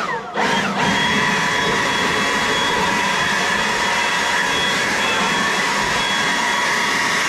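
A small high-speed electric fan motor runs steadily with a whine. It dips and picks up again in the first second and winds down with a falling pitch at the end.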